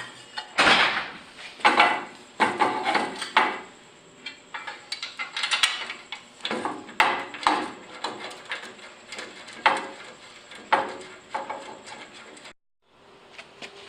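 Irregular metallic clinks, clicks and knocks of jointer fence parts and a bolt being handled and fitted back into place, with a short silent break near the end.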